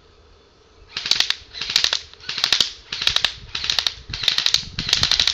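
JG M16A4 electric airsoft rifle firing short fully automatic bursts: a rapid clatter of shots, about seven quick bursts in a row starting about a second in.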